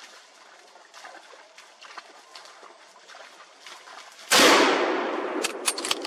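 A single loud rifle shot about four seconds in, ringing out and dying away over more than a second, followed by a few sharp clicks. Faint rustles come before it.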